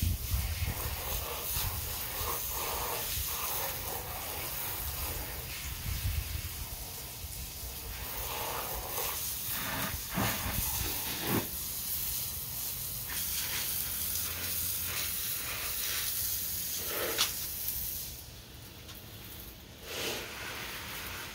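Garden hose spraying water onto a concrete patio to wash off dirt, a steady hiss with a few knocks. The spray eases off for a couple of seconds near the end.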